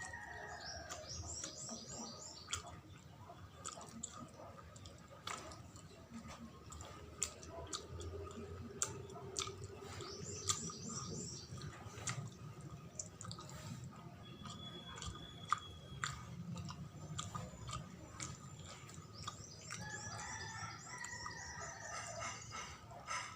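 Close-up chewing of a sticky glutinous rice sweet, with scattered sharp wet clicks, while birds chirp in the background in three short spells.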